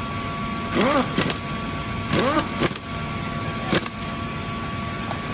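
Impact wrench fired in about three short bursts on bolts of a screw compressor air end, each burst spinning up and down in pitch with a rattle of hammering. A steady hum with a faint constant tone runs underneath.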